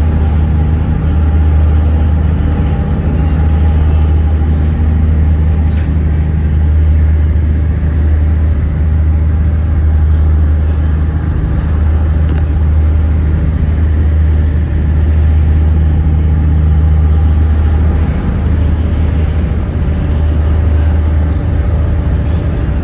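Motorboat engine running at a steady speed: a loud, even low drone that holds without change.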